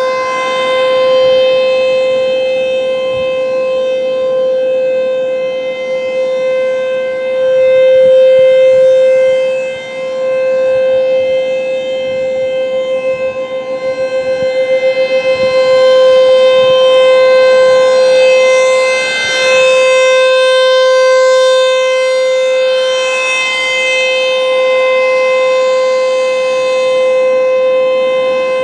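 ASC T-128 rotating outdoor warning siren sounding a steady alert tone on one unchanging pitch, its loudness swelling and fading slowly as the rotating horn sweeps past. This is the steady full-alert signal of a nuclear plant siren test.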